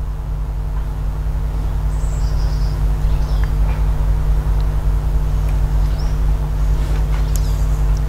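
A motor running steadily with a low, even hum. A few faint bird chirps come in over it.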